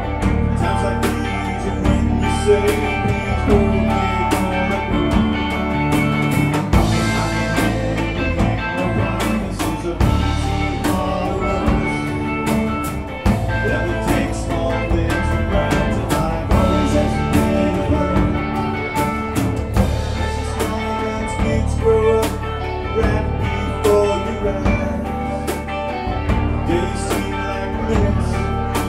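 Live alt-country rock band playing: strummed acoustic guitar and electric guitars over bass guitar and a drum kit keeping a steady beat.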